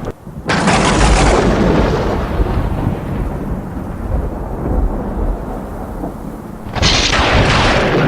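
Hurricane storm noise of heavy rain and wind with a low rumble, surging in sharply about half a second in and again near the end.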